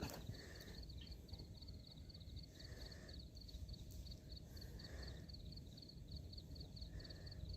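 Quiet outdoor ambience: a steady, high-pitched pulsed chirping, about five chirps a second, from a small calling animal such as an insect, over a low background hum, with a few soft muffled sounds.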